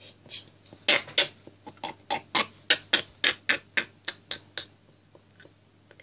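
A man's stifled, breathy laughter in quick bursts, about four a second, dying away after about four and a half seconds.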